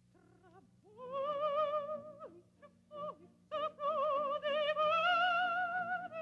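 Operatic singing: one high voice with a wide vibrato, coming in about a second in and holding long notes, with a few short notes in the middle and a long note that climbs slightly near the end.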